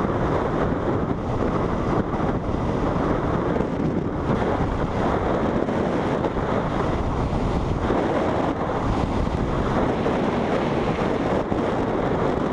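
Steady wind rush over the microphone of a camera on a motorcycle riding at highway speed, with the bike's engine and tyre noise blended underneath.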